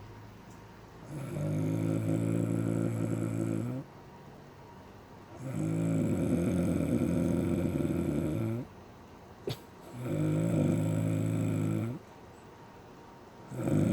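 A woman snoring: three long snores of about three seconds each, with pauses for breath between them, and a fourth starting near the end. A single short click about nine and a half seconds in.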